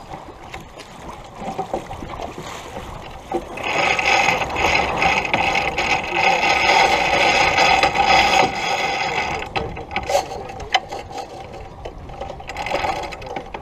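Sailboat sheet winch being cranked, its pawls ratcheting quickly as a sheet is ground in. It is loudest for about six seconds in the middle, then continues more lightly.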